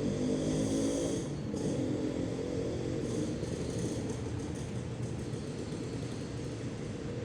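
An engine running steadily nearby, slowly fading.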